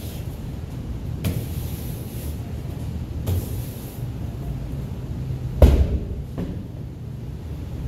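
Medicine ball thudding during wall-ball throws: two dull thumps as the ball strikes the wall and is caught. About five and a half seconds in, the ball is dropped onto the rubber gym floor with a loud thud and bounces once. A steady low hum runs underneath.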